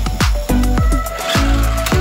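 Background music with a steady beat. Deep bass-drum notes slide down in pitch about twice a second under steady held tones.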